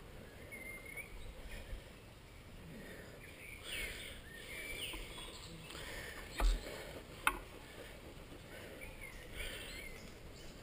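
Birds chirping outdoors, short curving calls repeated several times, with two sharp clicks less than a second apart a little past the middle.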